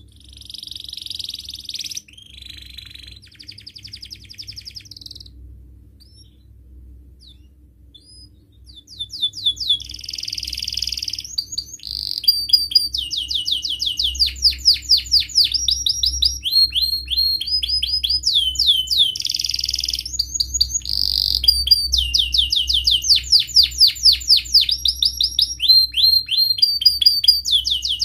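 Domestic canary singing: fast trills and rapidly repeated chirping phrases, broken by rougher buzzy notes. The song comes in short bursts at first, then runs on almost without pause and louder from about nine seconds in.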